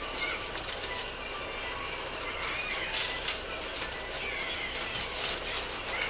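Rustling with scattered light clicks and taps, like things being handled, loudest about three seconds in.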